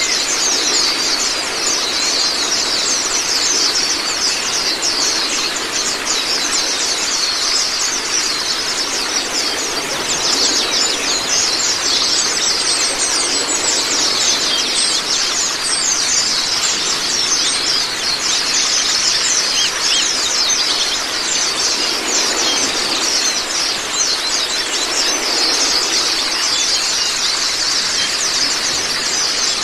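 A flock of white-eyes (Zosterops) chattering without a break in fast, high-pitched chirps, over a steady rush of running water.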